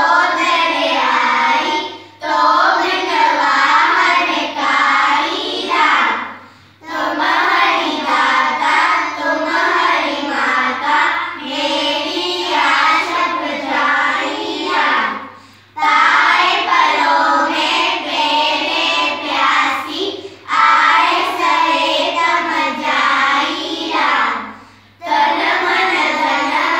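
A group of children singing a Hindi devotional prayer in unison, in phrases of a few seconds with short pauses for breath between them.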